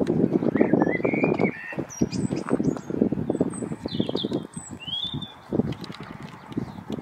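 Small birds chirping in short rising and falling calls, over an uneven low rumble that is heaviest in the first two seconds.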